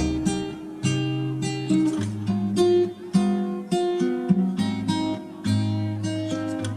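Background music: acoustic guitar, strummed and plucked chords in an even rhythm.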